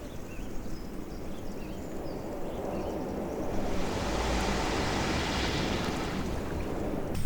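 Outdoor rushing noise, like wind or lapping water, that swells about three and a half seconds in, with a few faint short chirps in the first seconds.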